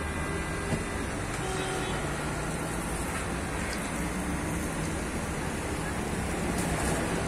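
Spiral coils of dough deep-frying in wide pans of hot oil, a steady sizzle over a low hum.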